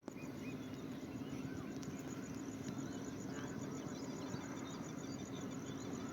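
Birds chirping and calling, with an insect pulsing in a fast, even, high-pitched rhythm of about five pulses a second, over a steady low hum.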